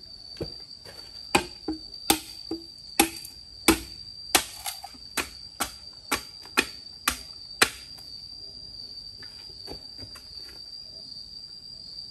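Knife chopping on a cutting board: sharp, uneven strokes about two a second that stop about two-thirds of the way through, over a steady high whine.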